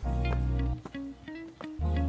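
Background music: plucked guitar notes over deep bass notes that are each held for most of a second.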